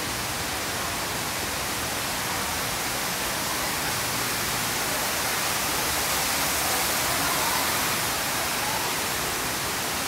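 Tall indoor waterfall pouring down onto a stone floor: a steady, loud rush of falling water, swelling slightly about six seconds in.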